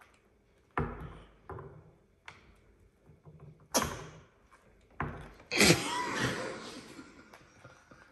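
Blue-and-gold macaw working a walnut on a hard tabletop: a string of sharp knocks as the nut is bitten and set down on the table, the loudest about five and a half seconds in, followed by a couple of seconds of rattling.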